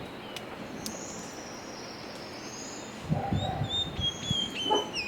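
Small songbirds chirping and whistling in thin, high notes, some sliding in pitch, from bird-song sounds dubbed over the footage. A short patch of soft low rustling comes about three seconds in and again near the end.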